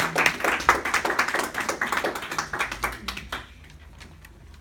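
Small audience applauding, dense and irregular at first, thinning out and dying away about three seconds in.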